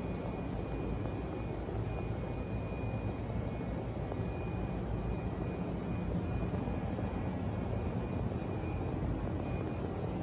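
Subaru WRX STI's turbocharged flat-four boxer engine idling, a steady low exhaust rumble from its quad tailpipes in an underground car park.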